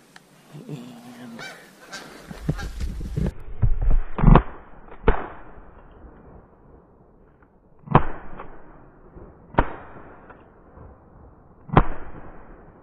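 Geese honking overhead, then shotgun blasts: several in quick succession about four to five seconds in, then three more single shots roughly two seconds apart.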